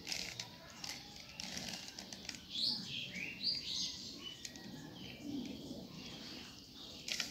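Plastic 3x3 Rubik's cube being turned by hand: quiet clicking and rattling of its layers as the faces are twisted one after another.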